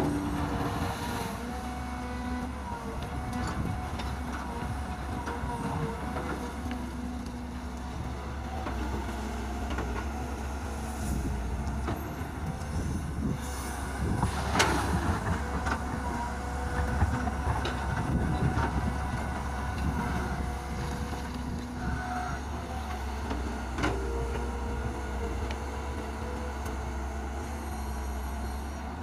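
Kobelco hydraulic excavator's diesel engine running steadily under load, its hydraulic tone shifting up and down in pitch as the boom and bucket move. The bucket scrapes and knocks through rocky soil, with the sharpest knock about halfway through.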